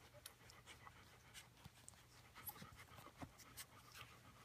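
Faint, irregular wet clicks of three-week-old Bernedoodle puppies suckling at their mother, with the mother dog panting.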